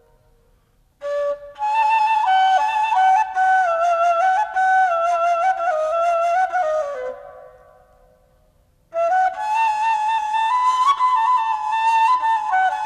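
Background music: a solo wind-instrument melody in two phrases. The first enters about a second in and fades out around seven seconds in, and the second begins about nine seconds in.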